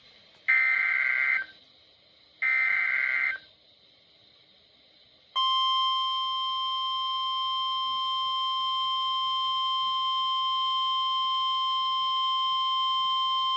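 Emergency Alert System opening: two short bursts of SAME header data tones, a warbling digital screech, about a second apart. About five seconds in, a single steady attention tone starts (the NOAA Weather Radio warning alarm tone) and holds.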